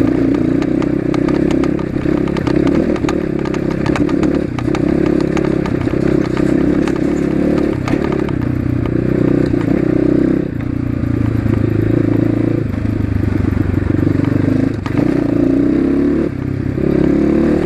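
Asian Beast 250 dirt bike's engine running loud under way, its note rising and falling with the throttle and dipping briefly several times.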